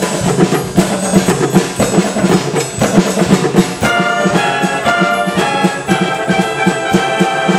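Amateur wind band playing a mambo: clarinets, flutes, trumpets and trombones over a steady percussion beat. From about halfway through, the band holds sustained chords.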